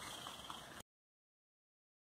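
Faint steady background hiss with a few light ticks, cutting off abruptly to dead silence just under a second in.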